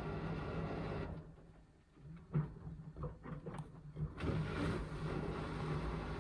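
Indesit washing machine running with a steady motor hum that cuts out about a second in. During the lull there are a few short knocks, and the motor starts up again about four seconds in, as the drum stops and turns again with an unbalanced load.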